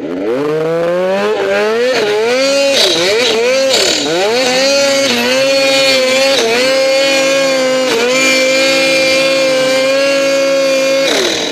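Snowmobile engine revving hard as the sled climbs a deep-powder slope. The revs climb in the first second and rise and dip with the throttle for a few seconds. They then hold high and steady, and fall away sharply near the end.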